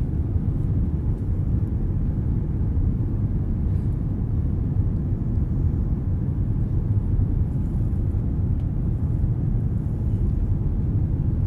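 Airliner cabin noise in flight: a steady low rumble of jet engines and airflow heard from a seat inside the cabin, with the aircraft climbing just after takeoff.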